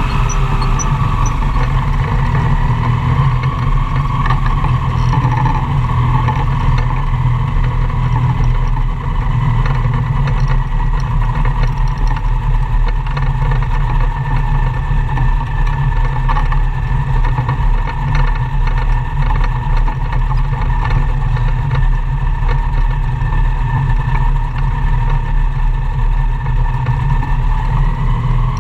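Magni M-22 Voyager gyroplane's engine running steadily at taxi power.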